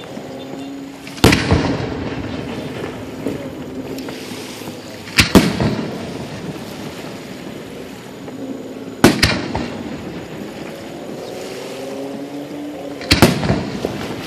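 Fireworks bursting overhead: four loud bangs about four seconds apart, each trailing off with echo and crackle.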